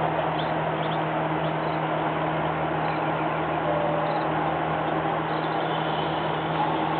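Steady mechanical hum with hiss, holding an even level with a constant low tone underneath.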